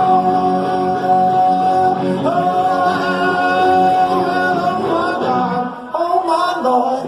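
A live band playing a song, with the singer holding long sung notes over the band. About six seconds in, the low accompaniment drops away and the singing carries on over lighter backing.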